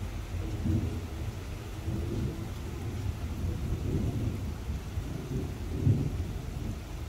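Thunder rumbling low and continuously, swelling about a second in and again near the end, with rain falling.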